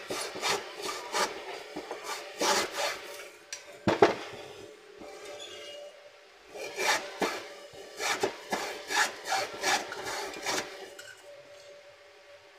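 Hand work on the burnt-out motor coil of a 20-inch hanging fan: irregular scraping and clicking strokes in short clusters, with a single sharper knock about four seconds in, growing quieter near the end.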